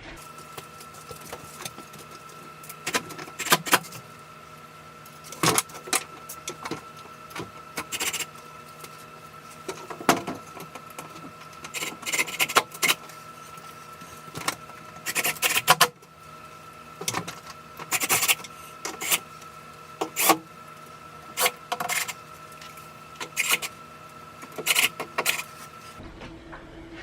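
Irregular knocks, clicks and clinks of tools and hardware as a door is rehung on its frame, over a steady hum that starts and stops abruptly.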